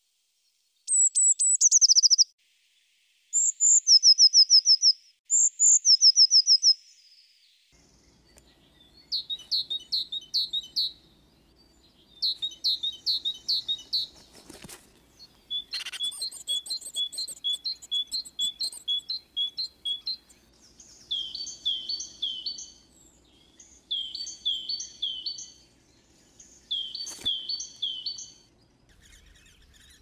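Songbirds singing in woodland: short phrases of high whistled notes, each phrase a quick run of three to six notes, many sliding downward, repeated every second or two. Two sharp clicks sound, one about halfway through and one near the end.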